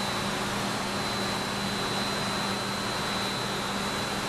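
Steady factory-floor machinery noise: an even hiss with a constant high-pitched whine and a low hum.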